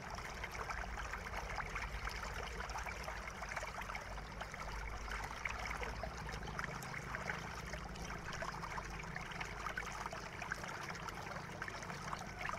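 Faint rapid small clicks and scrapes over a steady hiss: a screwdriver backing screws out of a Lenovo IdeaPad S215's plastic bottom case, with the footage sped up.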